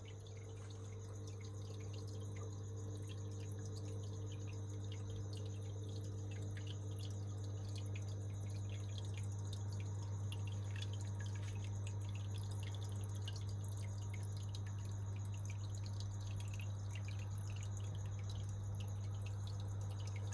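Small pump-fed waterfall trickling and dripping into its pool, with many small irregular drips over a steady low hum.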